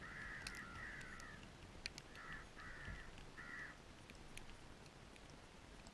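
About five harsh crow caws in the first few seconds: two long ones run together at the start, then three shorter ones, with scattered faint ticks.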